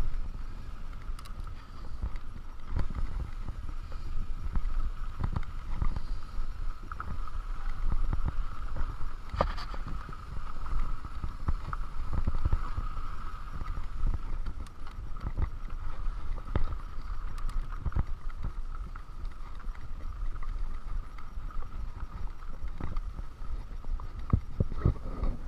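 Mountain bike rolling over a rough dirt and gravel trail: a constant low rumble from the tyres and frame, broken by frequent sharp knocks and rattles as it hits bumps and rocks, with a steady faint whine running under it.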